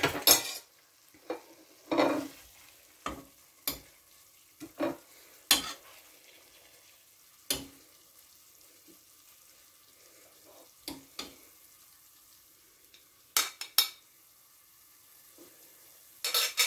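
A metal utensil clinks and scrapes against a stainless steel pressure cooker pot in irregular sharp knocks as fried chicken pieces are lifted out onto a plate. Faint sizzling of the frying oil can be heard between the knocks.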